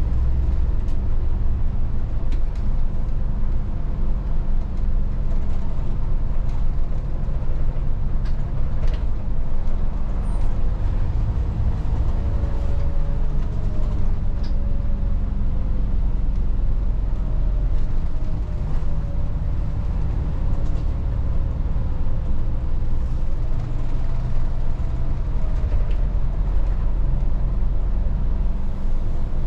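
Volvo 8900 city bus driving along, heard from inside the bus: a steady low engine and road drone with a faint wavering whine and scattered small clicks and rattles.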